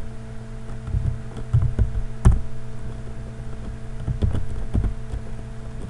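Computer keyboard typing: scattered, irregular keystrokes, one louder than the rest about two seconds in, over a low steady hum.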